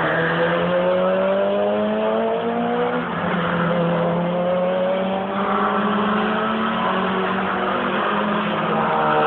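Touring race car engines at full throttle as cars pass one after another, each engine note rising as it accelerates through the gear, the notes of successive cars overlapping.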